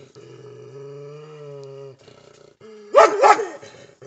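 Shepherd dogs, German Shepherd and Belgian Shepherd: a low, steady growl for about two seconds, then a quick run of loud barks about three seconds in.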